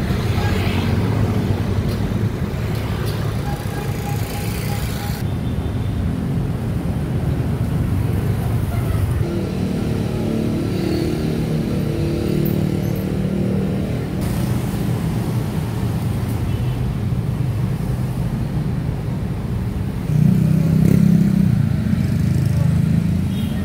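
A motor vehicle's engine running steadily with a low rumble, growing louder about twenty seconds in.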